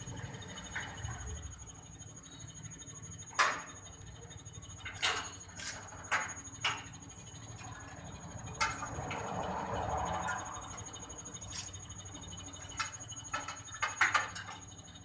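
Scattered clicks and knocks of parts being handled during the assembly of a bottle-filling machine, with a few seconds of scraping about nine seconds in and a faint steady high whine underneath.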